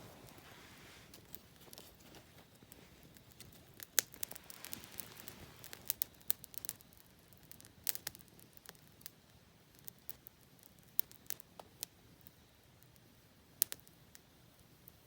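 Wood bonfire crackling: irregular sharp pops and snaps over a soft hiss, a few of them louder.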